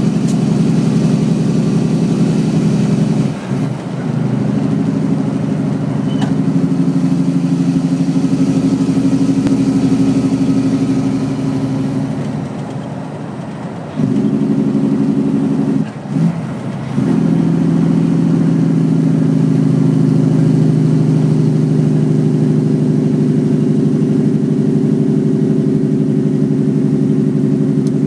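Western Star truck's Cummins ISX engine brake (jake brake) running, a loud, steady, low-pitched exhaust bark as the truck slows. It cuts out briefly a few seconds in and again about halfway through, and eases off for a stretch just before that.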